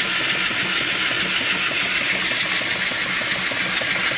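Small mill steam engine (3-inch bore, 4-inch stroke) running steadily at about 200 rpm and driving a belted alternator: a continuous hiss over a light, rhythmic mechanical clatter.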